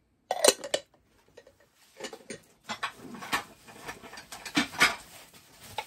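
Denby stoneware cereal bowls knocking and clinking together as they are handled and stacked: a quick cluster of knocks about half a second in, then scattered lighter knocks.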